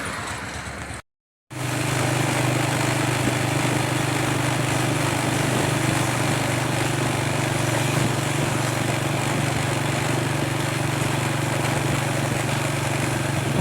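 A motor vehicle's engine running steadily at an even speed, with road and wind noise, as heard while riding. The sound drops out briefly about a second in.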